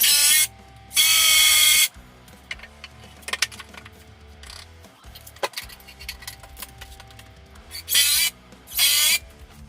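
Power drill running in four short bursts over background music: one at the start, a longer one about a second in, and two close together near the end.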